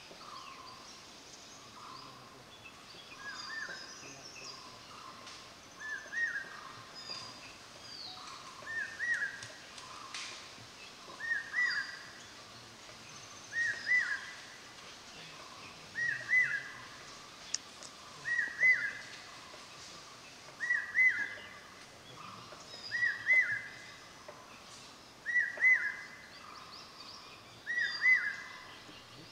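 A forest bird repeating a short, whistle-like call about every two and a half seconds, around eleven times, each louder than the last. Fainter, higher chirps of other birds sound behind it.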